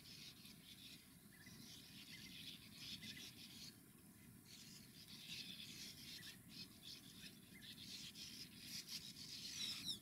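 A sand martin colony at its nest burrows: faint, dry, scratchy twittering from many birds, in short irregular bursts, louder just before the end.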